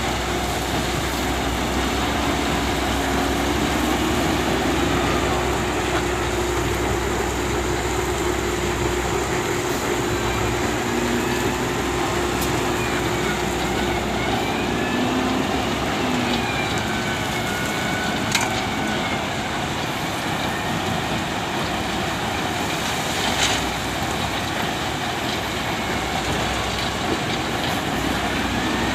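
SDLG excavator running under load, engine and hydraulics working, with whining tones gliding up and down as the machine moves. A deep rumble fades about a third of the way in, and two sharp knocks come in the second half.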